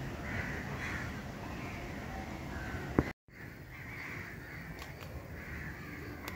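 Crows cawing repeatedly in the background. About three seconds in there is a sharp click, followed by a brief gap in the sound.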